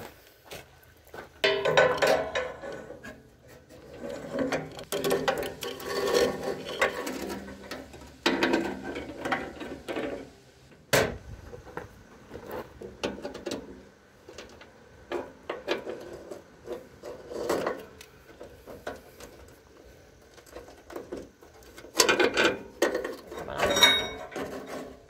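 Steel roller chain rattling and clattering over the sprockets of a Case Ingersoll snowblower's jackshaft and auger drive as it is handled and fitted, while the sprockets are lined up. The rattling comes in irregular bouts, with one sharp click near the middle.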